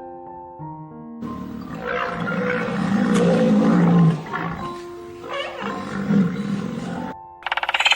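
A big cat roaring twice: a long roar that builds louder for about three seconds, then a shorter one. Light background music plays on its own for about the first second.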